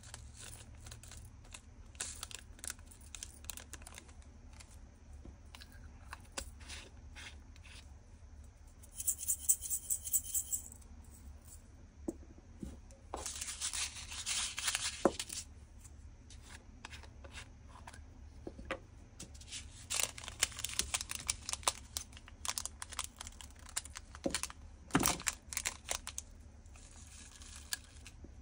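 Small plastic bags of diamond-painting drills crinkling and being snipped open with scissors, and the tiny plastic drills pouring with a rattling patter into plastic storage bottles. This comes in several bursts of a second or two, with light clicks in between.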